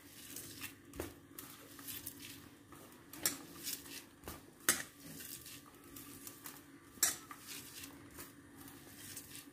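A hand rubbing and squeezing grated coconut with shallots, garlic, green chillies and curry leaves on a steel plate, the coconut mixture being worked together by hand for a thoran. Scattered light clicks and taps of fingers against the steel plate, at irregular times.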